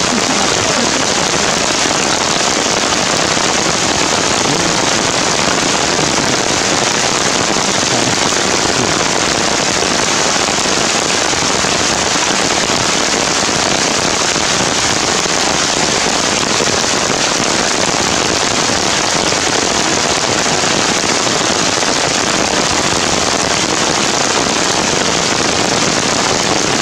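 Heavy rain falling in a steady, loud hiss, with the crackle of drops hitting nearby surfaces.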